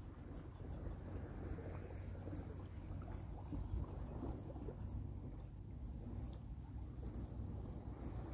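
Steady low rumble of wind on the microphone at the shore, with a run of short, high squeaks, two or three a second, pausing for about a second halfway through.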